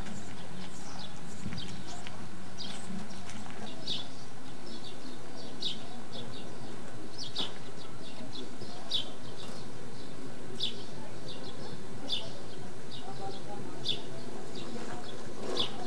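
Birds chirping outdoors: short high chirps repeating about every second and a half, with fainter ones in between, over steady background noise.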